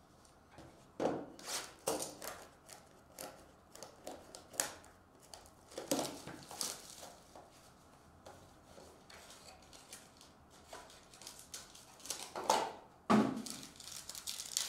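Cardboard trading-card boxes being handled and opened: scattered taps, scrapes and tears. Near the end a foil card pack crinkles in the hands.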